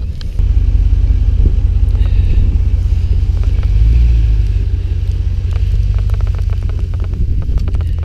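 Dodge Ram 2500 Power Wagon driving on a snow-covered road, a loud low rumble picked up by a camera mounted low on the outside of the truck. The rumble swells about four seconds in, and scattered light ticks come through in the last few seconds.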